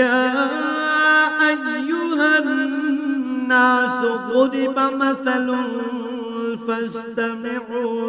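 Male Qur'an reciter chanting Arabic in melodic tajweed style, drawing out long held notes with wavering ornamental turns of pitch.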